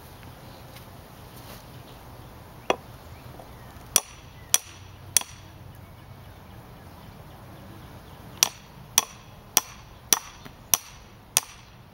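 Ball-peen hammer striking the poll of a hatchet whose blade is set in a split of wild cherry, driving it in to split off a section. A duller knock comes first, then three sharp metallic strikes, then a steady run of blows about two a second near the end.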